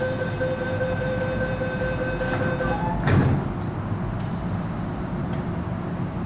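Door-closing warning of an MTR M-Train and its platform screen doors: a steady two-note tone that stops about two and a half seconds in, then a thud about three seconds in as the doors shut. A steady low hum from the standing train runs under it.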